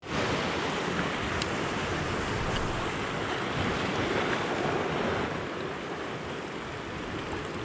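Sea waves breaking and washing over shoreline rocks: a steady rush of surf that eases slightly about five seconds in.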